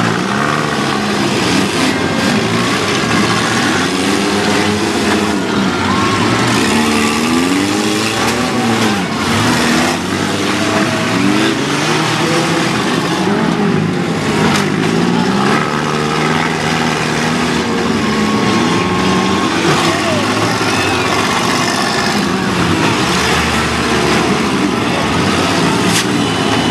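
Several small demolition-derby car engines revving up and down over and over as the cars drive and ram one another. A few sharp crashes of metal on metal stand out from the engine noise.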